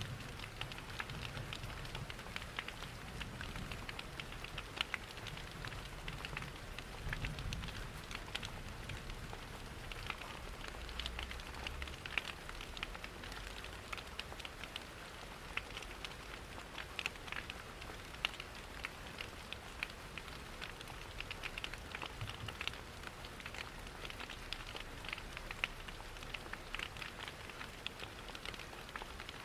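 Steady rain pattering mixed with a crackling wood fire: many small sharp ticks over an even hiss, with a soft low rumble that comes and goes in the first half.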